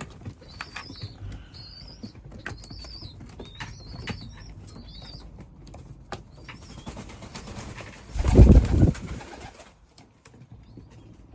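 Young pigeons squeaking with high, wavering cries over and over, then a loud burst of wing flapping about eight seconds in.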